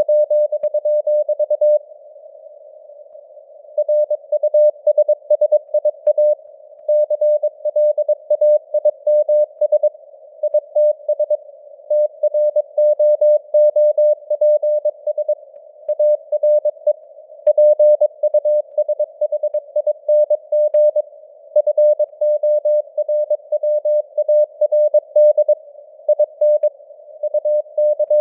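Morse code sent as a keyed, mid-pitched beeping tone at 22 words per minute, in fast dots and dashes, with a narrow band of simulated radio hiss around the tone. The keying stops for about two seconds near the start, then carries on.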